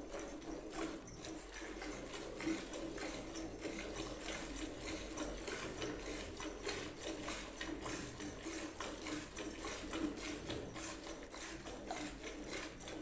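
Milk squirting from a cow's teats into a steel pail during hand-milking, in a steady rhythm of about two squirts a second.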